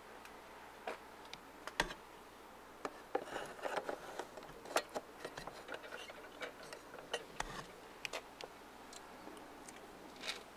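Irregular light clicks and taps of a plastic headlight housing and its small hardware being handled and pressed into place, with a busier run of clicking and rustling about three to five seconds in.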